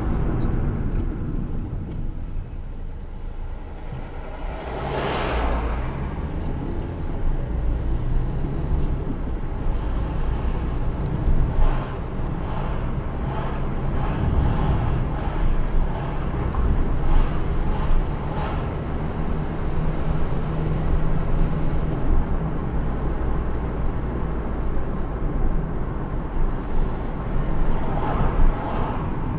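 Car driving along a road: steady engine and tyre rumble, with a brief louder whoosh about five seconds in and another near the end.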